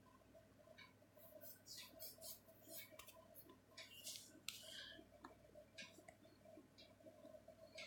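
Near silence: faint room tone with a low steady hum, scattered soft clicks and short scratchy rustles.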